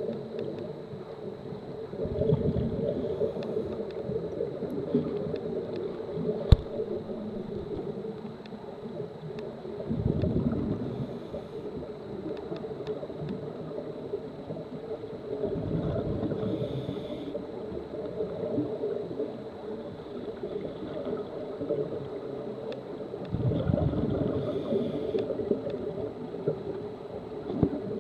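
Scuba diver's regulator breathing underwater: four bubbling exhalations, about seven seconds apart, each with a short hiss, over a steady hum. A single sharp click comes about six and a half seconds in.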